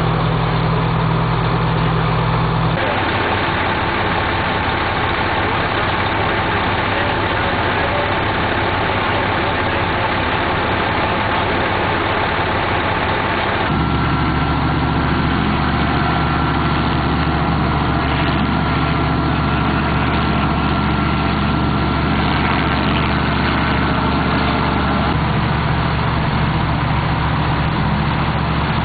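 Heavy truck engines idling steadily, the sound changing abruptly twice where the recording cuts between shots. A thin, steady high whine is heard through the middle stretch.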